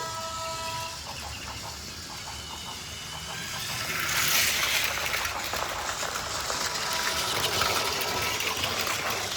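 Battery-powered Plarail toy train running along plastic track, with a steady rhythmic clicking and a whirring hiss that gets louder about four seconds in.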